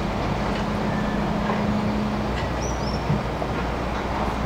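Crawler excavator's diesel engine running steadily while the machine swings, over the rush of river water. A bird chirps twice, briefly, about two and a half seconds in.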